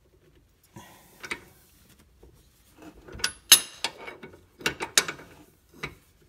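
Breaker bar and socket being worked on a tight 21 mm rear suspension bolt: a series of sharp metallic clicks and clanks as the bolt is forced loose, the loudest about three and a half seconds in with a brief metallic ring.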